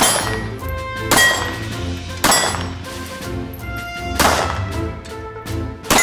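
FN 1910/22 semi-automatic pistol fired five times at an uneven pace, each sharp shot ringing out over background music.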